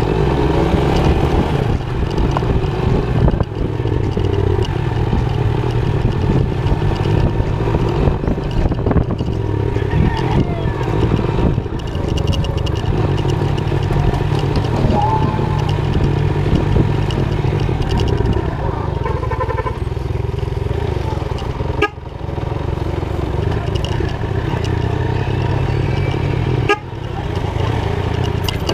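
Motorcycle engine running steadily while being ridden, heard from the rider's position, with two brief dips in level in the last few seconds.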